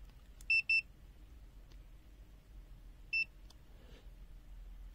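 Buzzer of a UNI-T UT256 fork-type clamp meter beeping as its keys are pressed: two short high beeps in quick succession about half a second in, then a single beep about three seconds in.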